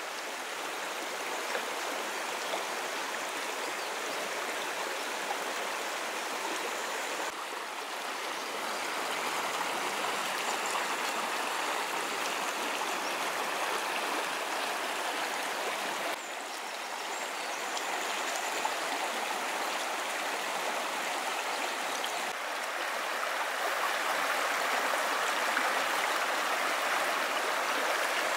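A river flowing steadily, a continuous rushing hiss of moving water that shifts slightly in level a few times.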